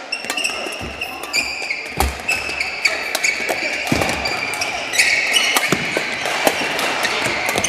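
Badminton doubles rally: repeated sharp racket strikes on the shuttlecock, with short high squeaks of court shoes on the floor between them.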